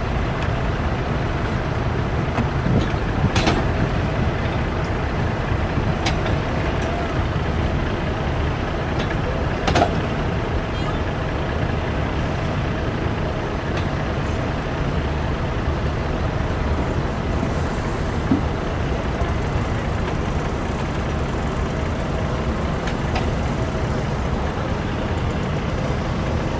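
A steady low mechanical rumble with a faint steady hum, broken by a sharp knock a few seconds in and another about ten seconds in.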